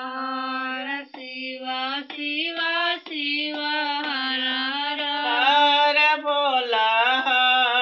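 A woman singing a devotional song to Shiva, one voice holding long, slightly wavering notes with short breaths between phrases.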